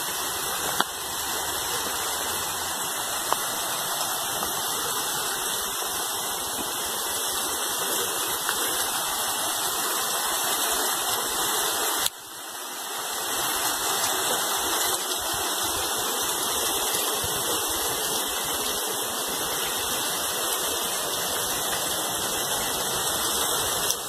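Water rushing and splashing steadily where a pipe spills into a small concrete creek channel. The sound drops out briefly about halfway through, then comes back.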